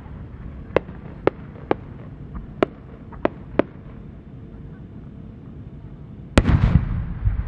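A large Japanese No. 10 firework shell with rising effects: a string of six sharp pops from the small effects on its climbing tail over the first three and a half seconds, then the main burst of the four-core changing chrysanthemum, a loud bang about six seconds in that trails off into a rolling rumble.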